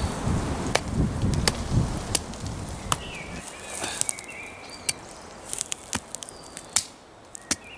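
A hand axe knocking into firewood as it is split: a dozen or so sharp, irregular knocks, with a low rumble in the first three seconds. Birds chirp in the background from about three seconds in.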